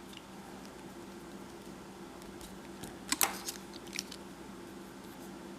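A pencil scratching and tapping on paper in a short cluster of quick strokes a little past the middle, with one more tick shortly after, over a faint steady hum.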